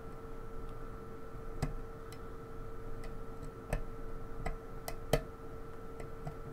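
Small, irregular metallic clicks of a lock pick working the pins of a pin-tumbler lock held under tension, about a dozen in all, with a steady faint hum underneath.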